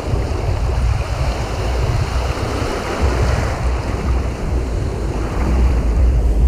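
Waves breaking and foamy shallow surf washing in, with wind buffeting the microphone in uneven low rumbles.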